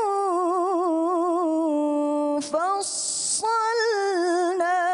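A woman's solo voice recites the Quran in melodic tilawah style, the phrase 'wa kulla shay'in fassalnahu tafsila'. She holds long ornamented notes with a quick warble, then a steady held note. After a brief breath about two and a half seconds in comes a drawn-out hissing consonant, and the melody resumes.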